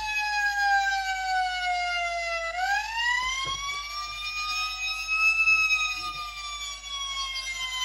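Electronic wail siren from the sound module of a 1:24 scale Agora Models FDNY tower ladder fire truck model: a single tone slowly falling in pitch, swooping back up about two and a half seconds in, then slowly falling again.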